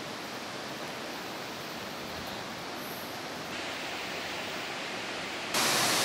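Steady rush of falling water from a waterfall, becoming suddenly much louder about five and a half seconds in.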